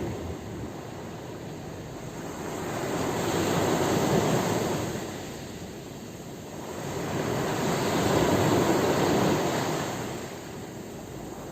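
Sea waves washing in, two swells of surf that each build for a few seconds and fall away.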